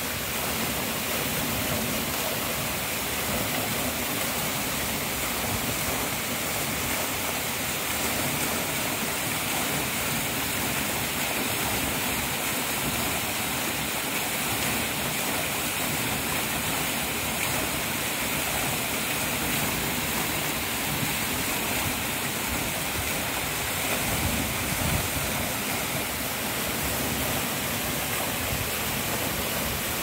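Waterfall pouring down a rock face into a plunge pool: a steady, unbroken rush of falling and splashing water.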